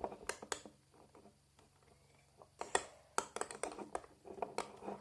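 Slime mix of glue, shaving foam and lotion being stirred in a container: irregular clicks and taps of the stirrer against the container, pausing for about two seconds shortly after the start, then coming thick and fast.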